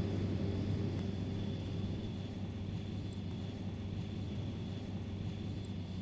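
Fendt Favorit 818's MAN six-cylinder turbocharged, intercooled diesel engine running steadily under load while the tractor pulls a four-furrow plough through the soil. It gradually gets quieter.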